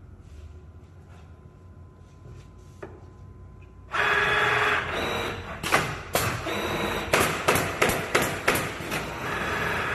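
Allio automatic canvas stretching and stapling machine starting up loudly about four seconds in, then firing a rapid series of sharp staple shots, about three a second, as it staples canvas to a wooden stretcher frame.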